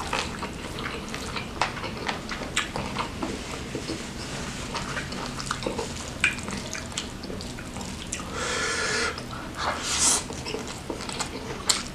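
Rice soaked in beef gulai curry sauce being squished and mixed by hand on a plate, a steady run of small wet clicks and squelches. About eight seconds in there is a short breathy hiss, and a handful is taken into the mouth near the end.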